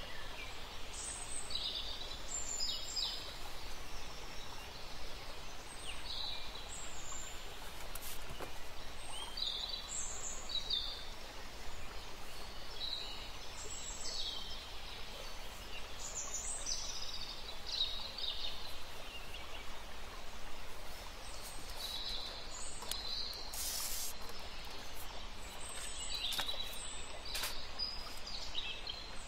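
Small birds chirping and singing: short, high calls scattered throughout over a steady background hiss.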